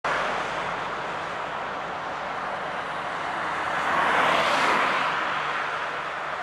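Road traffic noise on the highway: a steady hiss of passing vehicles, one of which swells past loudest about four seconds in and then fades.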